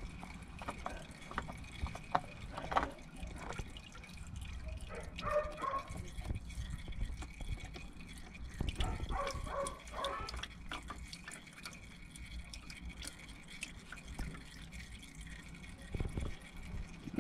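Engine oil trickling and dripping, with scattered small clicks.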